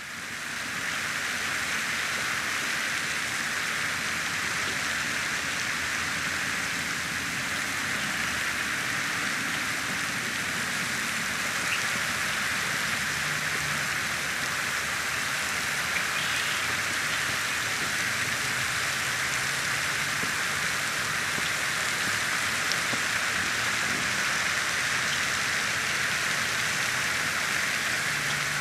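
Pond fountain's tall jet spraying, its water falling back onto the pond surface in a steady hiss like heavy rain, fading in at the start.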